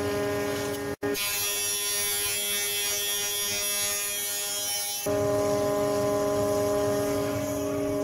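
Metabo planer-thicknesser running and feeding a mahogany board through, its cutterblock taking a light cut with a loud hiss over the steady motor hum. After a very brief break about a second in, the hiss lasts until about five seconds in, then drops away to a steadier hum.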